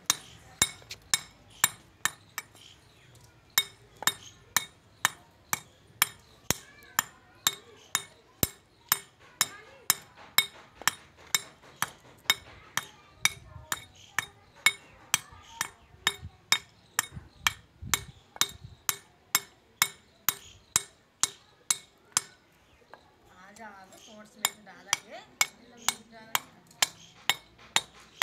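A pointed steel pick-hammer pecking the grinding face of a stone batta (the muller of a sil batta), giving sharp, ringing clinks at about two strikes a second. Each blow knocks a small dent into the stone, dressing its worn surface rough again for grinding. The strikes pause briefly about three-quarters through, where a faint voice is heard.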